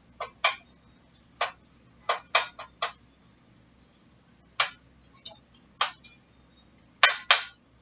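A metal utensil clicking and clinking against a cooking pan as ground beef is stirred: about a dozen short, sharp clicks at irregular intervals.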